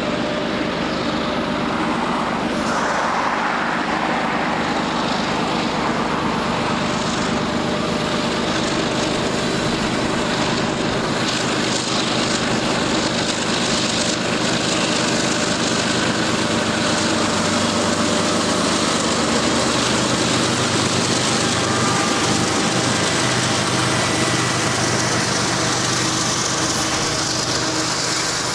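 Kansas City Southern diesel-electric freight locomotives running loud and steady as they approach and pass, their engine drone shifting in pitch about two-thirds of the way through. Near the end the sound turns to the rolling rumble and hiss of covered hopper cars going by on the rails.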